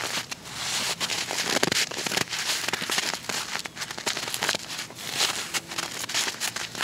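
A gloved hand scooping and packing loose snow close to the microphone: irregular crunching and crackling.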